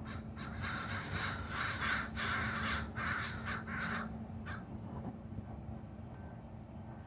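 A flock of birds giving a rapid run of loud, harsh calls for about four and a half seconds, then falling quiet.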